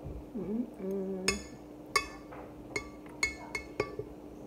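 Metal spoon clinking against a glass bowl while scooping porridge: about seven sharp, ringing clinks, the first about a second in and most of them bunched in the second half. A short hummed 'mm' comes just before the clinks start.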